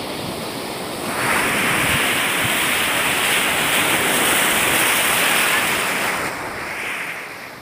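Sea surf breaking and foaming over shoreline rocks: a rush of water that swells louder about a second in and ebbs away near the end.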